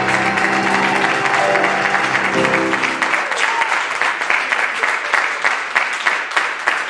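A closing chord on a grand piano rings under an audience's applause and stops about three seconds in. The clapping carries on alone after that.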